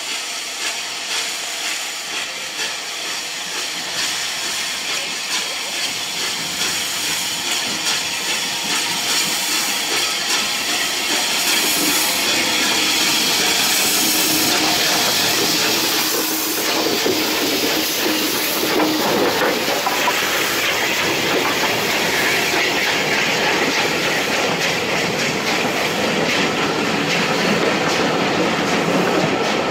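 Bulleid Battle of Britain class 4-6-2 steam locomotive No. 34072 working a train toward and past the listener with a hiss of steam, getting louder as it nears and passing about halfway through. Its coaches then roll by, their wheels clicking over the rail joints.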